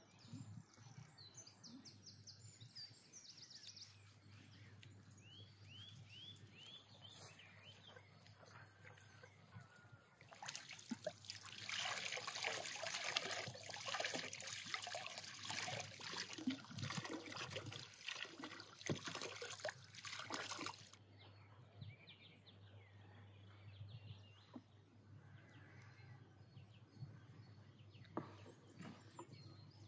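Water poured from a glass jar over vegetables to rinse them: a steady splashing pour lasting about ten seconds through the middle. Earlier, a bird calls in a quick series of short rising chirps.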